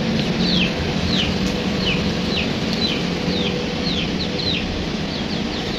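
Young chicks peeping: a steady run of short, high calls, each falling in pitch, two or three a second, over a low steady hum.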